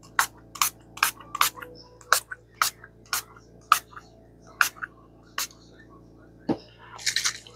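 A small pump spray bottle of stain misting a paper page: about ten quick sprays, roughly two a second, then a softer, longer hiss near the end.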